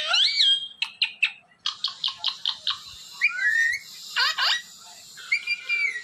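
Indian ringneck parakeet calls: high whistled glides and squawks, with a quick run of about five short chirps a little under two seconds in.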